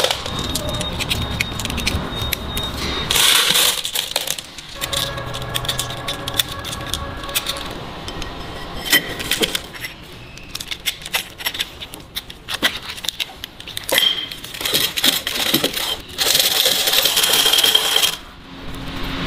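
Steel parts of roller-bearing assemblies clinking and clicking against each other as they are handled and fitted by hand. Two longer stretches of hiss come a little after three seconds and near the end.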